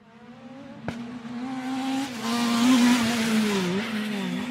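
Racing sports car engines running hard, the sound fading in and growing louder, with a sharp click about a second in. A wash of noise builds after about two seconds, and the engine pitch dips briefly twice near the end.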